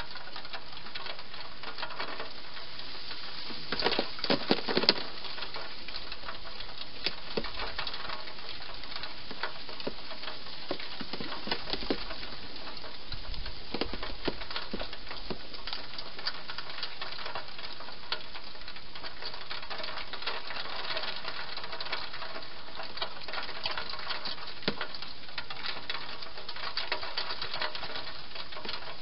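A hedgehog eating at a dish inside a plastic feeding box: a steady run of small crunching clicks and smacks over a constant hiss, with a louder cluster of clatter about four to five seconds in.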